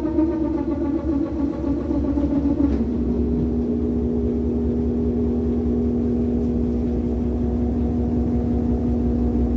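Brastemp 15 kg washing machine running with a motor hum and low rumble. The hum shifts in pitch for the first three seconds, then settles into a steady drone. This is the noise of a broken basket support.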